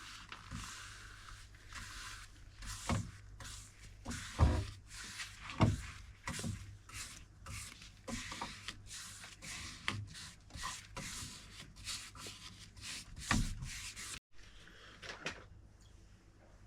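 Knocks and bumps on a wooden dresser, with rubbing or scraping between them, irregular throughout, as the piece is handled and worked on.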